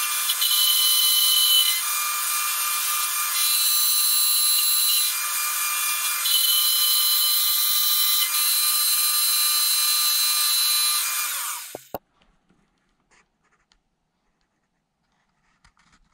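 Milling machine end mill cutting into the side of a cast-aluminium LS1 power steering pump and alternator mount: a steady, high-pitched cutting whine whose tones shift as the cut is fed. It cuts off abruptly about twelve seconds in.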